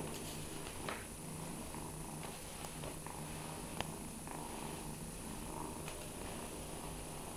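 Kitten purring, a low steady rumble, with a few light taps and one sharp click about four seconds in as it swats a string toy on the tile floor.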